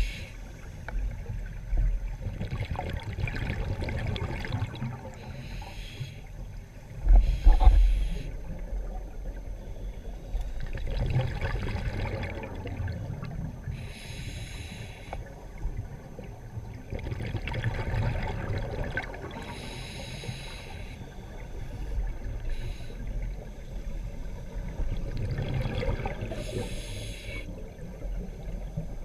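Scuba diver's open-circuit regulator breathing heard underwater: a short hissing inhalation about every six seconds, each followed by bubbling exhaled air. The loudest bubbling comes about seven seconds in.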